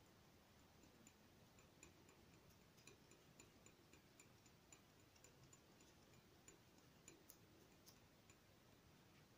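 Near silence with faint, quick ticks, about three to four a second, from a metal palette knife working oil paint back and forth on paper.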